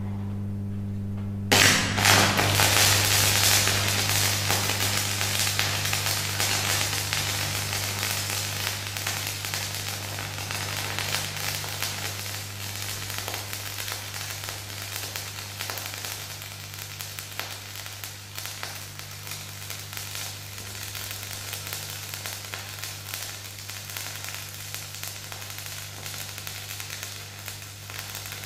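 Stick (shielded metal arc) welding with a 3.15 mm flux-coated electrode, laying a practice bead. The arc strikes about a second and a half in with a loud burst of crackling, then runs as a steady sizzling crackle that slowly gets quieter. The welding machine's steady hum runs underneath.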